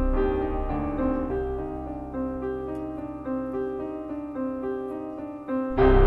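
Background music: a gentle piano melody that becomes fuller and louder near the end.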